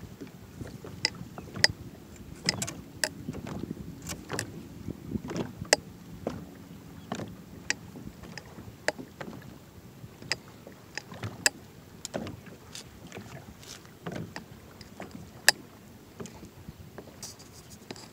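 Small waves slapping against a kayak's hull: irregular sharp slaps and taps, about one or two a second, over a low steady rumble of wind and water.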